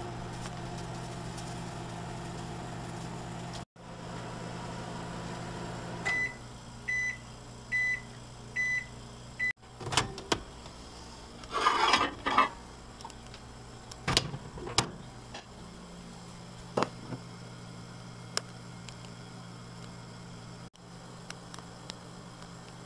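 Microwave oven running with a steady hum, then beeping five times about a second apart at the end of its cycle. After that come clicks and a clatter as the door is opened and the plate is taken out.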